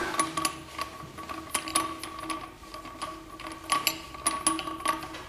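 Irregular light clicks and ticks as the small finial cap under a ceiling fan's switch housing is unscrewed by hand, over a faint steady hum.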